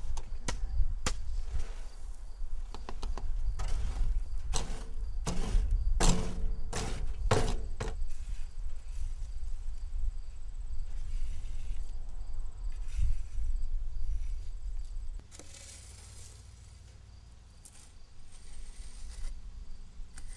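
Shovel scraping and knocking in loose asphalt, a run of quick strokes over the first eight seconds, over a steady low rumble that cuts off about fifteen seconds in.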